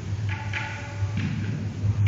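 Sikh devotional music (kirtan): harmonium notes held steady under repeated tabla strokes, about two a second.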